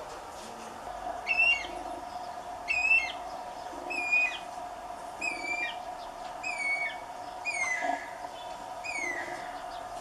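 Guira cuckoo calling: a series of seven whistled notes, one about every second and a quarter, each ending in a downward slur, the last ones falling more steeply. A steady faint hum runs underneath.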